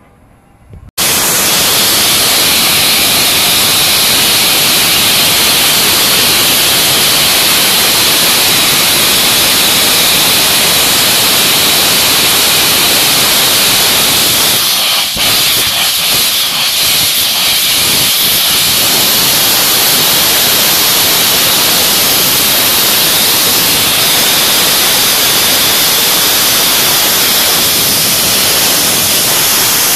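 Rebuilt West Country class steam locomotive 34027 Taw Valley blowing off steam: a loud, steady hiss from its open cylinder drain cocks and lifting safety valves. It starts abruptly about a second in.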